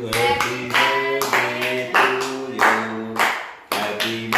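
Hands clapping in time, about three claps a second, along with a song.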